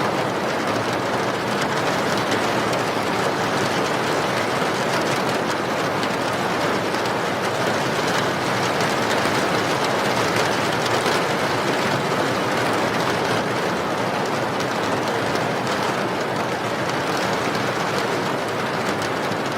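Steady rain falling, a continuous even hiss that holds at the same level throughout.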